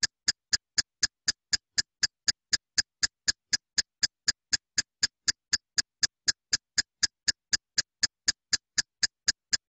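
Countdown timer ticking sound effect: short, sharp ticks about four a second, all equally loud, stopping near the end.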